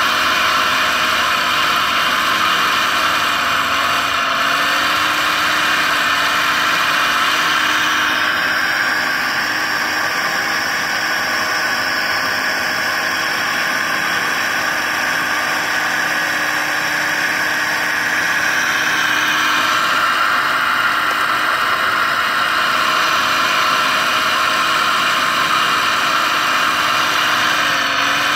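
Liebherr 960 SME radio-controlled model excavator running with a steady mechanical whir. A higher whine joins in for about ten seconds in the middle while the boom and bucket work.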